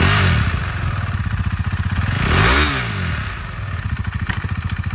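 2020 KTM 390 Duke's single-cylinder engine idling, blipped once about halfway through: the revs climb and fall straight back to idle.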